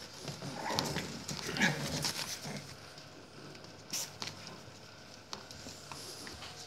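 A litter of puppies whining and yelping in short, wavering calls through the first half, then a few sharp taps of claws on a wooden floor.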